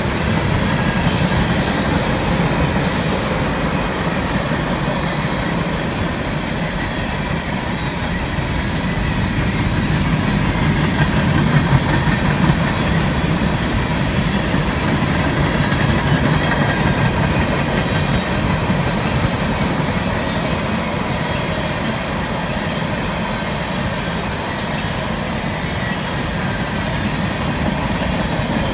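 A mixed freight train's cars (covered hoppers, boxcars and tank cars) rolling past at speed: a steady rumble of wheels on rail. Two brief high hissing bursts come in the first few seconds.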